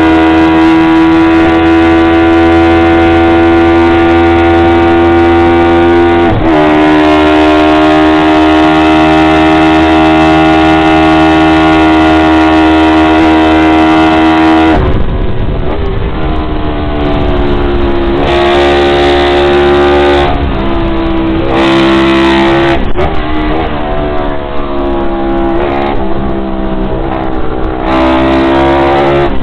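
Honda CB350-based parallel-twin engine of a Drixton 350 MkII race bike, heard on board at high revs under full throttle, with a quick dip in revs from a gear change about six seconds in. From about halfway the revs drop and climb again in a series of sharp steps as the rider shifts gears through the corners.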